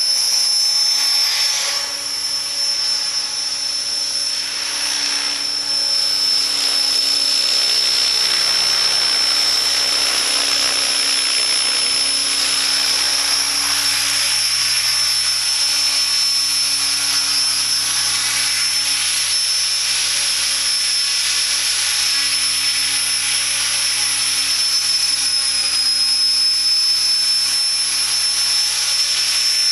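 Align T-Rex 600 ESP electric RC helicopter hovering and flying: a steady, high-pitched motor-and-gear whine over the rushing of the rotor blades.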